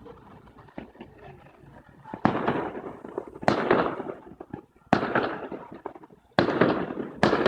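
Fireworks display: after about two quiet seconds, five loud bangs come in quick succession. Each has a sudden start and a rumbling tail that dies away over about a second.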